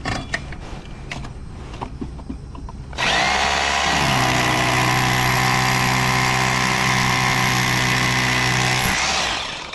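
A few handling knocks, then a Bosch rotary hammer drill starts about three seconds in, runs steadily for about five seconds and stops: a masonry bit drilling a new anchor hole in the foundation for the gas riser's bracket.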